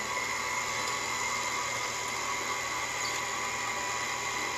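Electric stand mixer running steadily, its flat beater turning stiff cookie dough; a constant motor hum with a steady whine.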